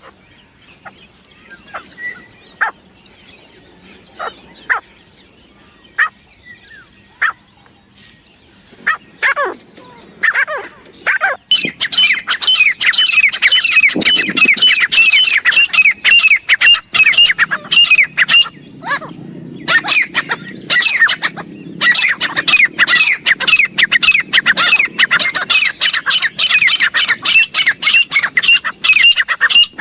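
Grey francolin calling: scattered single notes at first, then from about eleven seconds in a loud, fast run of repeated high notes, broken by a short pause partway through.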